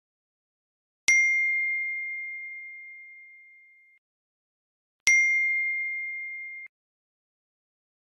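Phone text-message alert chime: two single bell-like dings about four seconds apart, each ringing and dying away, the second cut off short.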